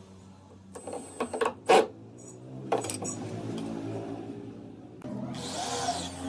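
Sharp metallic clicks and knocks from handling small hardware and a cordless drill while metal handles are fitted to wooden cabinet doors: a cluster in the first two seconds and another about three seconds in. A short scraping hiss near the end, over a steady low hum.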